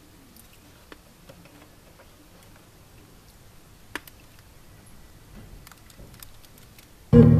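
Record player being set going: a few faint clicks and ticks over quiet hiss. About seven seconds in, the record's music starts suddenly and loudly.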